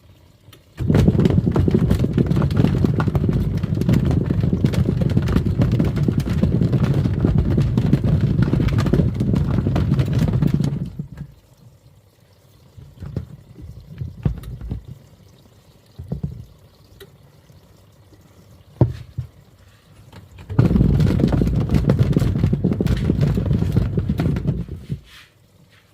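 Twin-tub washing machine's wash tub churning and sloshing foamy water in two spells, about ten seconds and then about five, with a quieter stretch of small splashes between. Its stops and starts fit the wash cycle pausing and reversing.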